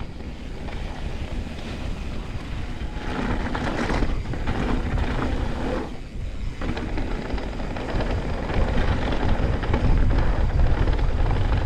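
Wind buffeting the microphone over the rumble and crunch of mountain bike tyres rolling down a dirt trail at speed, growing louder in the second half.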